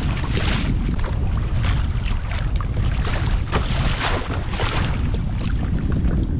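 Strong kona wind buffeting the microphone on a kayak at sea: a heavy, constant low rumble with gusty surges of hiss and some sea-water noise.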